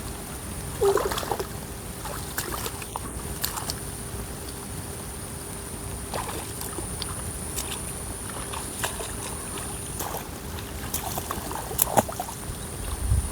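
Shallow water sloshing and trickling around people wading, with scattered small splashes and knocks, over a faint steady high-pitched whine.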